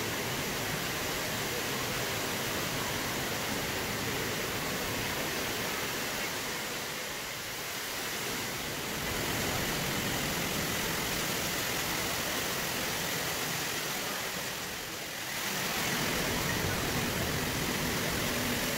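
Water from the Rain Oculus, a large acrylic bowl, pouring through its central hole and falling one storey into a pool below: a steady rushing hiss that dips briefly twice.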